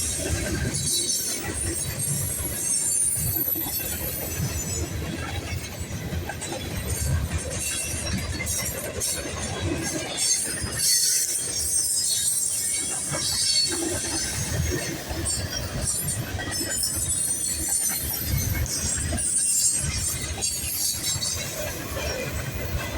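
Freight train rolling past: a steady rumble of railroad cars, with high-pitched wheel squeal and an irregular clatter of wheels over the rail.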